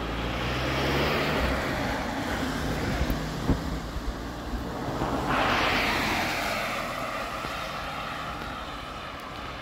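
Cars driving past on a wet road, their tyres hissing on the wet asphalt. One passes close about five seconds in, the loudest moment, then fades away.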